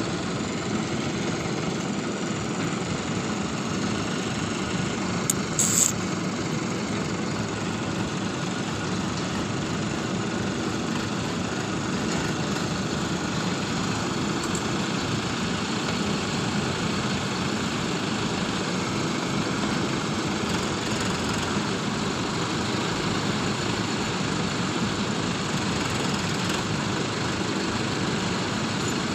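Diesel engines of a JCB 3DX backhoe loader and farm tractors running steadily, with a short sharp clank about six seconds in.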